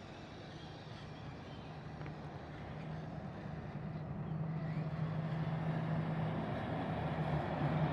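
A steady low motor hum that grows gradually louder.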